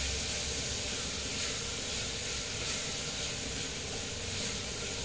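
Steady sizzle of sliced onions, ginger-garlic paste and salt frying in oil in an open pressure cooker.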